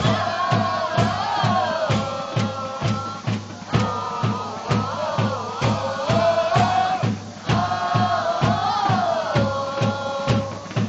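Football supporters' group singing a chant in unison, voices holding and sliding between notes, over a steady bass drum beaten about three times a second.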